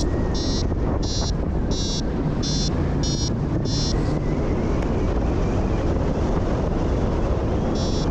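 Wind rushing over the microphone of a paraglider in flight, with the flight variometer beeping to signal lift. The beeps slow to about one and a half a second, stop about four seconds in, and start again near the end.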